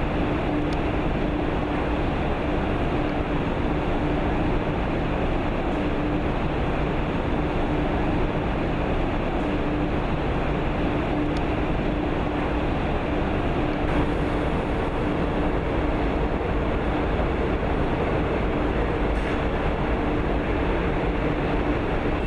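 Steady industrial machine noise, a continuous rumble with a constant hum, and a second, higher hum tone joining about two-thirds of the way through.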